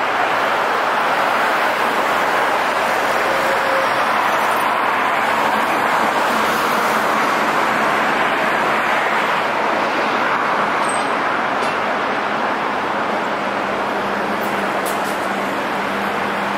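Steady traffic noise on rain-wet city streets: an even hiss of passing vehicles and rain. A low hum comes in about two-thirds of the way through.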